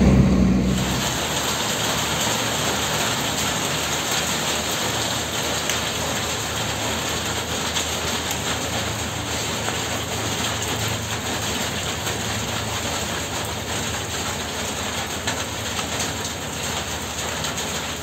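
Steady rain falling, an even, dense hiss.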